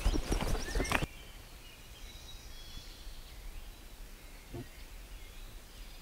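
Footsteps crunching through dry leaves and brush, stopping suddenly about a second in. After that it is quiet apart from faint bird chirps and one short low sound a little past the middle.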